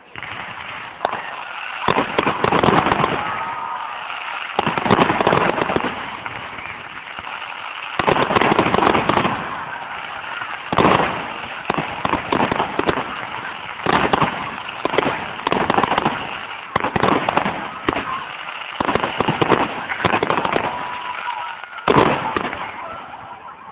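Fireworks display: aerial shells bursting, with sharp bangs coming in clusters every few seconds and crackling in between.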